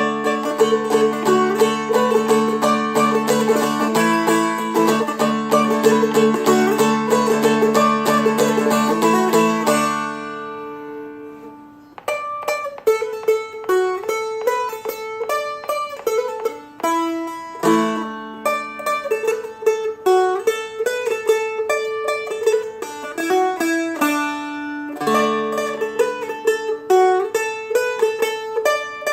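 Seagull Merlin strumstick playing the second part of a Celtic jig-style tune, its melody notes moving over steady droning strings. It is strummed densely for about ten seconds and left to ring out, then picks up again with single picked melody notes.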